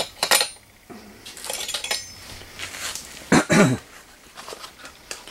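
Small metal clicks and clinks of a halogen headlight bulb being pushed and turned against the metal socket of a Honda 250SX headlight, the loudest cluster about three and a half seconds in. The replacement bulb is too big to seat.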